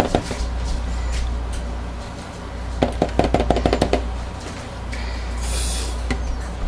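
Spatula stirring thick whipped soap frosting in a plastic measuring jug: a quick run of clacks against the jug's wall, about ten a second, lasting about a second, around three seconds in, over a steady low hum.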